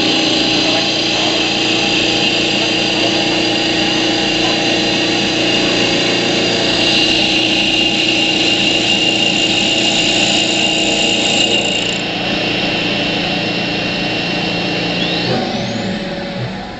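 CW-1020 automatic CNC wood lathe turning a wooden blank: motors running with a steady high whine while the cutter shaves the spinning wood. The sound drops slightly about twelve seconds in, and a short rising whine comes near the end as it quietens.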